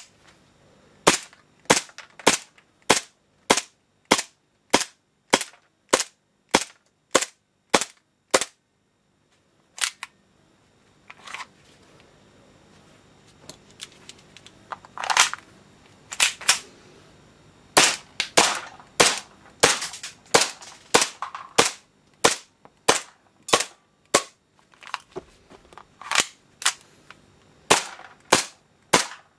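KWA TT-33 gas blowback airsoft pistol firing shot after shot, each a sharp crack. An even string of about two shots a second runs through the first third, then come a pause, a few single shots, and more rapid strings.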